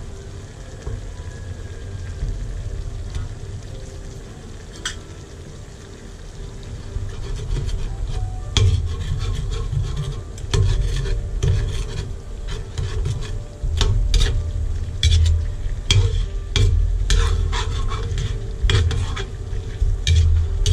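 Chicken pieces sizzling in a large metal wok. From about eight seconds in, a metal spatula stirs them, scraping and clinking against the wok again and again.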